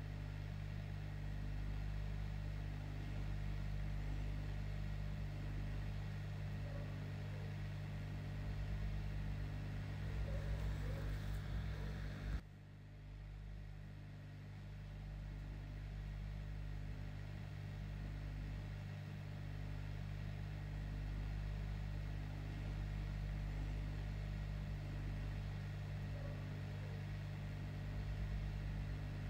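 Steady low electrical hum with a faint fan-like hiss from the repair bench. The hiss drops away abruptly about twelve seconds in, then slowly returns.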